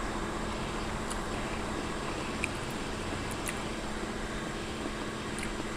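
Steady background room hum with a few faint, small clicks.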